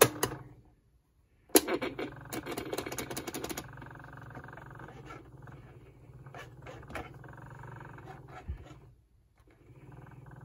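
Electra TC-505 reel-to-reel recorder's small battery-powered transport motor running: a sharp click, a second's pause, then about two seconds of rapid clattering clicks that settle into a steady motor hum. The hum cuts out briefly near the end and starts again.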